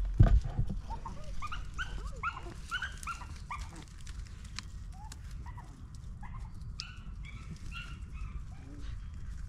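Beagles baying and yelping in quick, short, high calls, thick at first and sparser after about four seconds: hounds giving voice while running a rabbit through the brush. A loud low thump right at the start.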